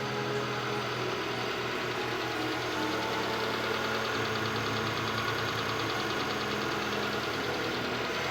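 Saipa Pride car engine idling steadily with a fine, even ticking, heard with its new alternator and AC belts fitted.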